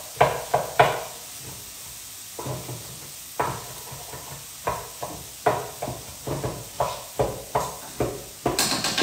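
Kitchen knife chopping a courgette on a wooden chopping board: irregular knocks of the blade on the board, two or three a second, with a pause of about a second and a half after the first second.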